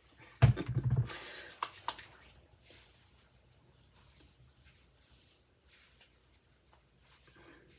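A short, loud thump about half a second in, then a second of hissy rubbing with a couple of small clicks, fading to faint rustling: hands working leave-in conditioner through wet hair.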